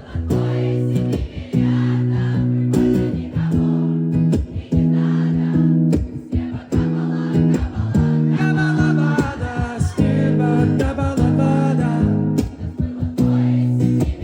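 Live rock band playing a guitar and bass chorus, loud and rhythmic, with the audience singing along.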